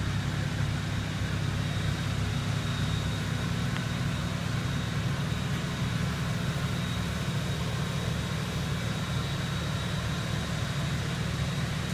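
Off-road 4x4's engine idling steadily, a low even hum that holds the same level throughout.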